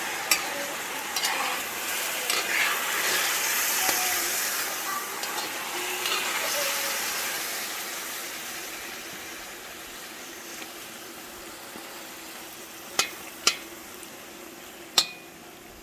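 Food sizzling in a cooking pot as it is stirred, the sizzle loudest in the first few seconds and dying down over the rest. A few sharp clicks near the end, a utensil knocking against the pot.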